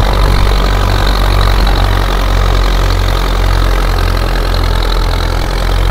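Belarus tractor's diesel engine running under heavy load, driving a wheat thresher through its PTO, with the threshing machine running alongside; a loud low drone with an uneven pulse. The tractor is straining because the wheat being threshed is damp.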